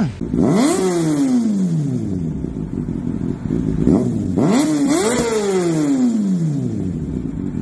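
Racing motorcycle engine sound, heard twice: each time the pitch climbs quickly and then falls away over a couple of seconds, like a bike revving hard and passing by.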